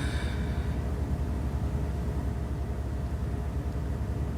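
Steady low hum, with faint steady tones above it.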